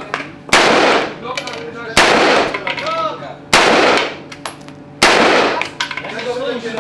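Single gunshots fired at a shooting range, four of them about a second and a half apart, each sharp crack followed by a ringing, echoing tail.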